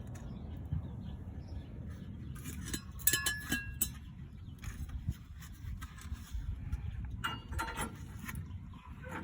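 Metal exhaust parts being handled during a test fit, clanking and rattling with short metallic rings, in two bursts: one about three seconds in and one near the end, over a steady low rumble.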